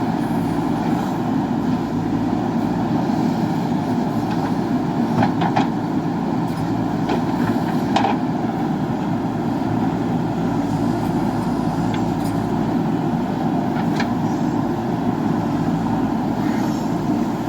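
JCB backhoe loader's diesel engine running steadily under load while digging, with a few short knocks of the digging gear, one about five seconds in, one about eight seconds in and one near fourteen.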